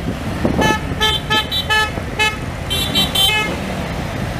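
Motorcycle horns honking in a string of about ten short toots over the steady rumble of Harley-Davidson motorcycles riding past; the toots stop near the end, leaving the engines alone.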